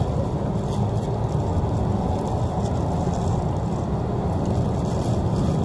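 Steady rumble of road traffic from a busy street, with no single vehicle standing out.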